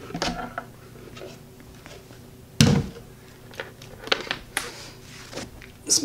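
Wooden beehive box being handled on a wooden floor: one solid thump about two and a half seconds in, with a few lighter knocks and clicks around it.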